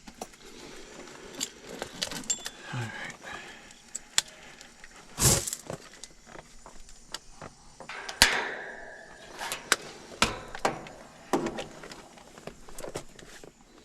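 Scattered metallic clicks, clinks and knocks of hand tools and sheet-metal panels being handled on an outdoor air-conditioning unit, with two louder knocks about five and eight seconds in.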